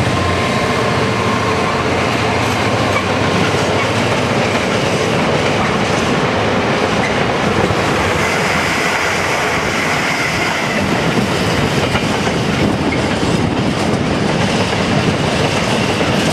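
Class 66 diesel-hauled container freight train passing close by: a steady rumble and clatter of wagon wheels on the rails, with a faint wheel squeal about eight seconds in.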